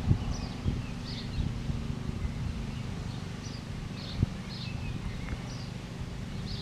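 Birds chirping in short repeated calls, about one or two a second, over a steady low rumble, with a few soft knocks.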